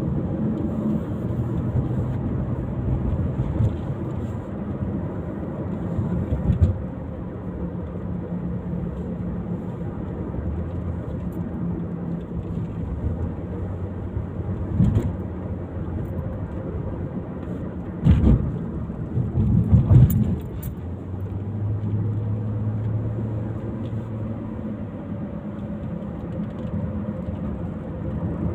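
A car running steadily on the road, a low engine and road hum, broken by a few knocks or thumps, the loudest two close together near the middle.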